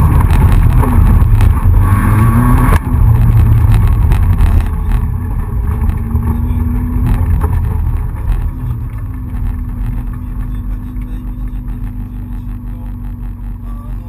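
Rally car engine heard from inside its stripped, caged cabin, revving hard for the first few seconds, then easing off and falling to a quieter, steady low running note as the car slows.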